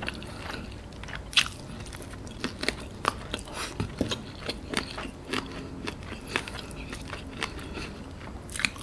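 Close-up chewing of crispy fried chicken: irregular crisp crackles and wet mouth clicks, the sharpest about a second and a half in.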